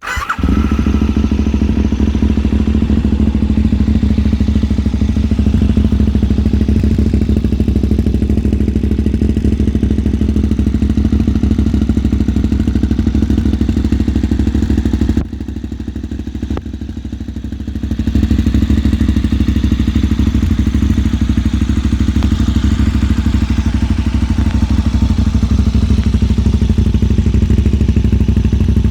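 KTM 990 Super Duke's V-twin engine through a LeoVince SBK Oval Evo II aftermarket exhaust, firing up and settling into a steady idle. It goes briefly quieter about halfway through, then returns to full level.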